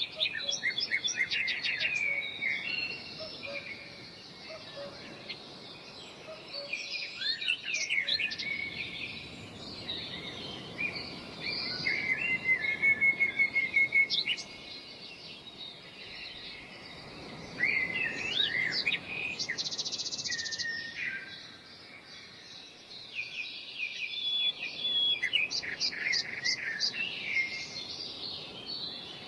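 Birdsong: several birds chirping, with sweeping whistled notes and rapid trills. The loudest is a fast run of repeated notes partway through.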